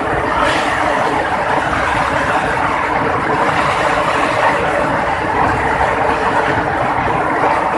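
Heavy rain pouring down, a steady, loud, even hiss without a break.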